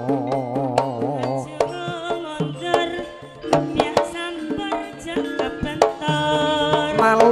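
Javanese gamelan playing a Tayub gending: bronze metallophones and gongs hold steady tones under sharp strokes of the kendang hand drum. For the first second and a half a singer holds a strongly wavering note.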